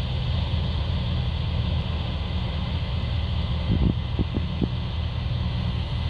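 Case IH 9240 combine on tracks running steadily as it harvests corn: a constant low engine rumble with a hiss above it. A few soft thumps come about four seconds in.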